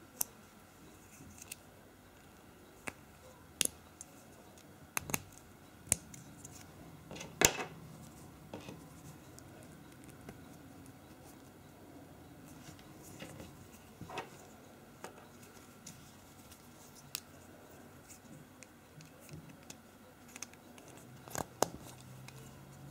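LEGO Technic plastic parts being handled and clicked together: scattered sharp clicks as pins and an axle are pushed into a liftarm. The loudest click comes about seven and a half seconds in, and there is a quick run of clicks near the end.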